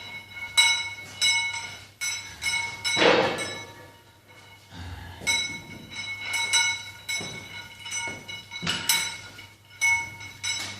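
Metal gym weights, plates or dumbbells, clinking against each other again and again at an irregular pace, each knock ringing on briefly.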